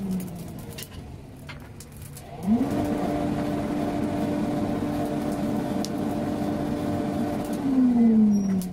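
Electric air blower on a blacksmith's forge: its motor whine winds down at the start, starts again about two and a half seconds in, quickly rising to a steady pitch, then winds down again near the end, as the blast to the fire is switched on and off. A few faint clicks through it.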